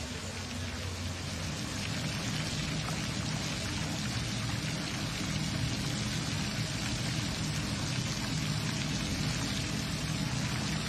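Steady hiss and patter of water spraying onto a pool surface: the diving pool's surface sprinklers, which break up the water so divers can see it. A low steady hum runs underneath.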